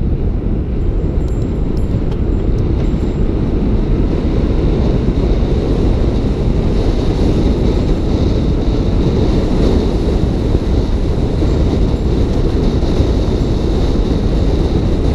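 Wind rushing over the camera microphone as a mountain bike rolls fast down a paved street, with road rumble. It is loud and steady, building slightly over the first few seconds.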